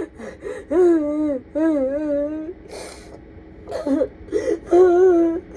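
A woman sobbing hard: drawn-out, wavering wails, each about a second long, broken by a noisy gasping in-breath near the middle and short catching breaths.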